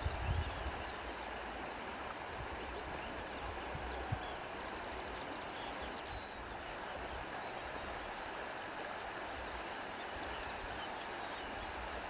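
Wind blowing steadily, a constant rushing hiss, with low rumbling buffets of wind on the microphone in the first second.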